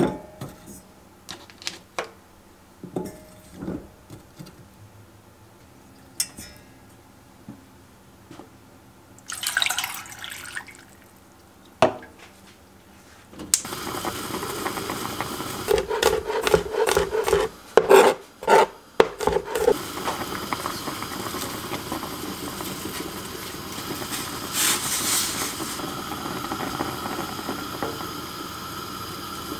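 Radish and pomfret pieces set into a stainless steel pot with small knocks and clinks. Then, from about halfway through, water boils in the pot with a steady bubbling, louder bursts of bubbling a few seconds after it starts, and a wooden spoon stirring near the end.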